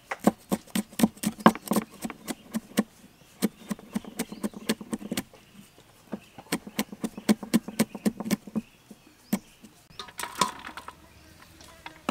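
Cleaver chopping red chillies on a wooden chopping board: quick knocks about five a second in two runs with a short pause between, ending with a single stroke about three quarters of the way through.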